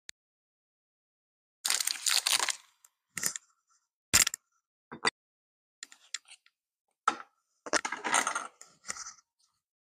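Chocolate bar wrapper crinkling as it is peeled off. About four seconds in there is a sharp crack as the chocolate is broken into the bowl, then small clicks and a second crinkly rustle of plastic near the end as a plastic spoon and butter tub are handled.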